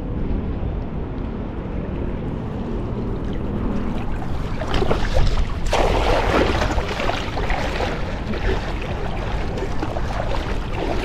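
Wind rumbling on the microphone over moving water, with a louder stretch of water sloshing and splashing about five seconds in.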